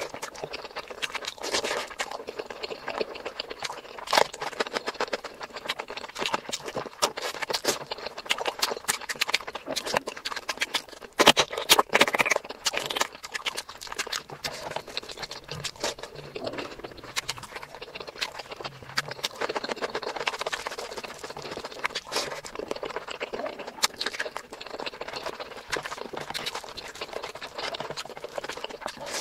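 Close-miked eating sounds: wet chewing and lip smacking of mutton curry and rice eaten by hand, with the squelch of fingers mixing rice into the curry. Many small clicks follow one another without a break, with a louder stretch about twelve seconds in.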